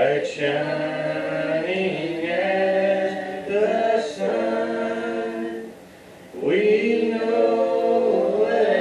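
Voices singing a hymn together without instruments, holding long notes, with a brief break between lines about six seconds in.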